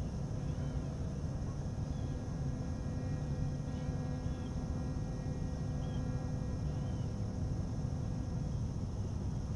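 A steady low hum with a few faint steady tones above it runs throughout, and birds give short chirping calls several times over it.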